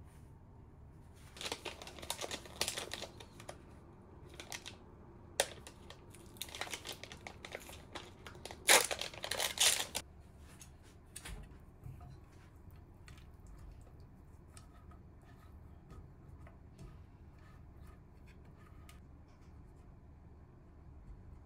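Curry roux packaging being torn open and crinkled by hand: a cardboard box and a plastic roux tray, in irregular bursts over about the first ten seconds, loudest just before they stop. Afterwards only faint light taps.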